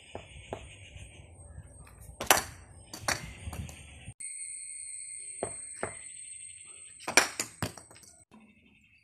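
Cricket bat hitting a ball: sharp knocks, the loudest about two seconds in and again about seven seconds in, each followed by a smaller knock. A steady high-pitched tone runs underneath and breaks off abruptly partway through.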